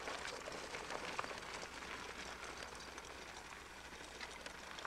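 Small rubber wheels of a wheeled dog-sled cart rolling over gravel, a steady crackly crunching made of many small clicks.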